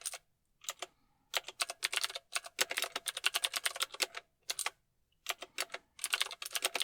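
Mechanical keyboard being typed on: quick runs of clacking keystrokes broken by short pauses, with a brief gap about halfway through.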